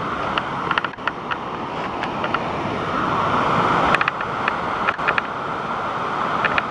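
Waterfall rushing: a steady, dense noise of falling water, with short high ticks scattered over it.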